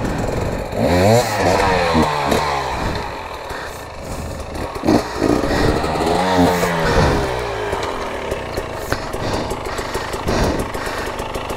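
Off-road dirt bike engine revving up and down under throttle, in two surges: one about a second in and another around the middle.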